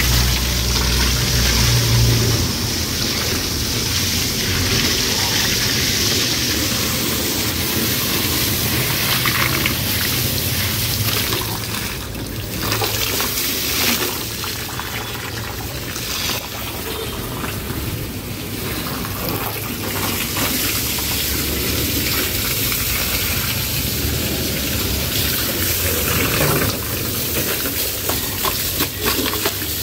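Water from a garden hose spraying against a car's wheel and body panels and splashing onto paving stones, a steady rushing hiss that shifts as the jet is moved over the car. A low rumble runs under it for the first couple of seconds.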